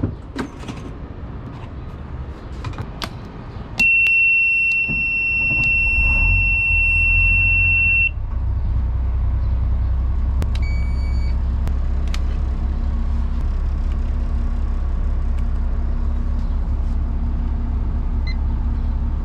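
Caterpillar marine diesel being started at the helm. The engine panel's warning buzzer sounds a steady high tone for about four seconds and cuts off a couple of seconds after the engine catches. The diesel then settles into a low, steady idle, with a few short electronic beeps from the helm electronics later on.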